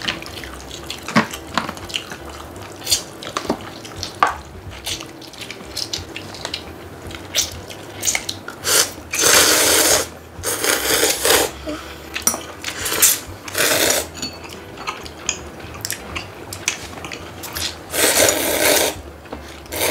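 People slurping noodles from cups, several long slurps around the middle and near the end. Chopsticks click against plastic bowls and dishes in between.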